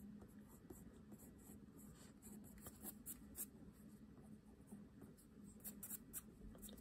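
Pencil scratching on sketchbook paper in faint, quick, irregular strokes.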